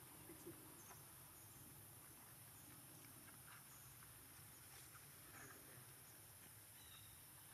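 Near silence: faint outdoor ambience with a few soft ticks and rustles.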